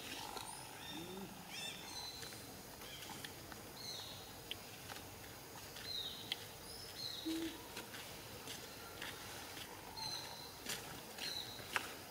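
Faint forest ambience with short high-pitched chirps that drop in pitch, repeating every second or two, and a few scattered faint clicks.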